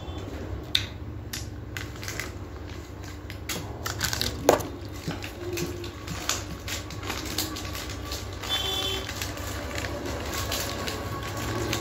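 Plastic ice-cream wrapper crinkling and crackling as it is handled and torn open, in irregular bursts with a sharper crack about four and a half seconds in, over a steady low hum.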